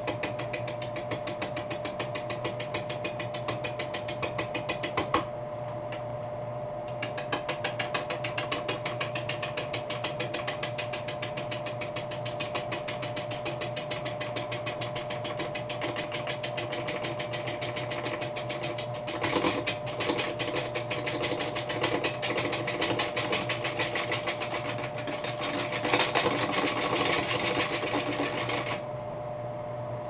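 Laguna wood lathe running with a bowl gouge cutting a wet red alder bowl blank: a rapid, even clatter from the cut over the lathe's steady hum. The cut stops briefly a few seconds in and again near the end.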